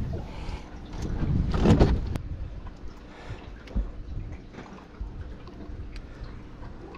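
Wind rumbling on the microphone, with scattered handling clicks and knocks and one louder rustling burst about a second and a half in.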